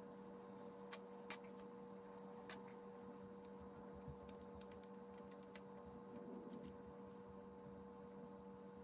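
Near silence: a steady low electrical hum, with a few faint clicks from hands handling the plastic screen and cloth over the wet paper sheet.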